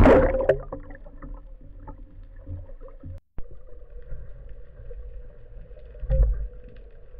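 Splash and rush of bubbles as a spearfishing diver and camera go under the surface, then muffled underwater ambience: a low rumble with a steady faint hum. The sound drops out briefly a little after three seconds in, and there is a low thump about six seconds in.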